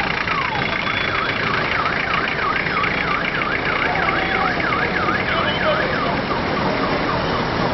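An electronic vehicle siren sweeping in pitch: short falling yelps at first, switching a second or so in to a fast up-and-down warble of several cycles a second, then back to falling yelps near the end. Steady traffic and engine noise lies underneath.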